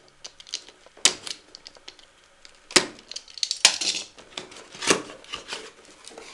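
Cardboard box being handled and opened by hand: flaps and packed contents knocking and clicking, with a few sharper knocks and light rustling in between.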